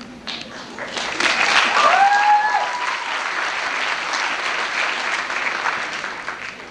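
Audience applauding. It builds about a second in and thins out near the end, and one person gives a brief whoop as it swells.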